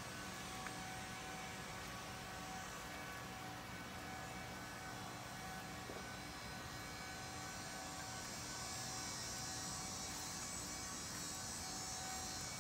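Faint, steady buzzing of bees working the flowering vines, over a constant background hum.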